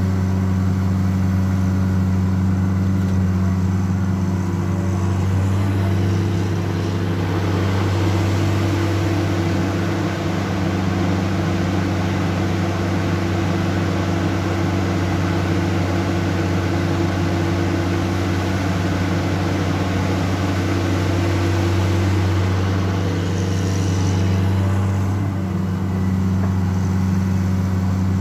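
Caterpillar 336D L ME excavator's diesel engine running steadily under working load while the machine digs and swings. It has a constant low drone that grows fuller and brighter from about six seconds in and eases a few seconds before the end.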